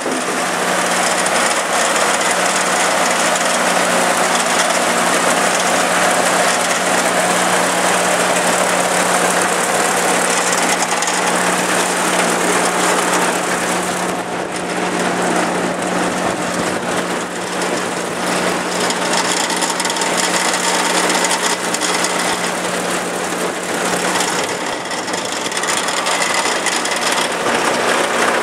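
Old tractor-driven forage harvester running at steady speed: engine and machinery make a continuous mechanical drone with a constant hum. The drone eases off slightly a couple of times.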